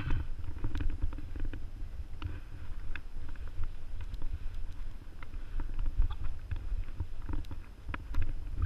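Mountain bike riding over a dirt trail, heard from a camera mounted on the moving bike: a steady low rumble of tyres and wind on the microphone, with frequent small rattles and clicks from the bike.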